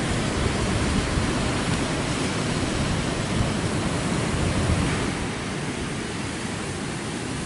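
Steady rush of ocean surf breaking on a beach, dropping slightly in level about five seconds in.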